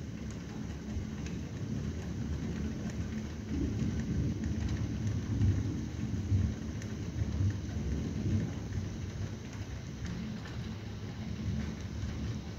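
Steady rain falling with light drip ticks, under a low rumble of thunder that builds about four seconds in, peaks in the middle and eases off a few seconds later.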